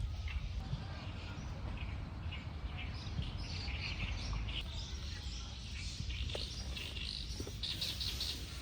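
Small birds chirping repeatedly in short high calls, busiest near the end, over a steady low rumble.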